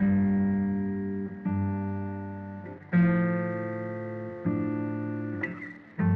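Background music: plucked guitar chords, a new one struck about every second and a half and left to ring out.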